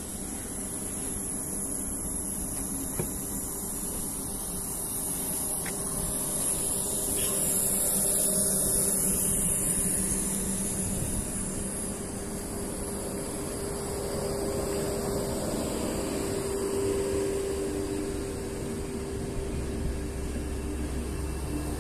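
Deutsche Bahn Intercity coaches rolling slowly past a platform: a steady hum with a high hiss from the passing train, growing a little louder about a third of the way through.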